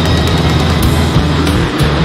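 Loud hard-rock music with a monster truck's engine running beneath it.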